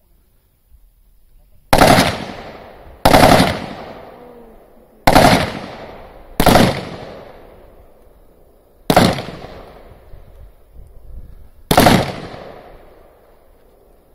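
Beryl 5.56 mm assault rifle firing six shots, one every one to three seconds, each report trailing off in an echo.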